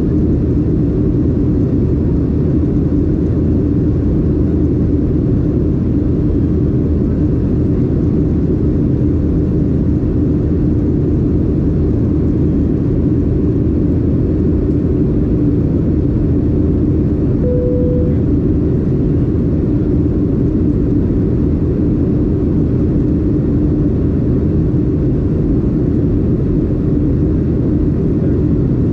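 Steady engine and airflow drone heard inside the cabin of a Boeing 737-800 in flight, its CFM56-7B turbofans running evenly with a constant hum. A brief single tone sounds a little past halfway.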